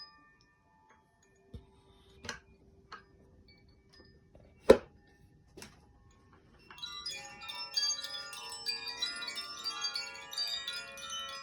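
A few sharp knocks, the loudest near the middle, then a Koshi wind chime ringing continuously, many bright tones overlapping and sustaining.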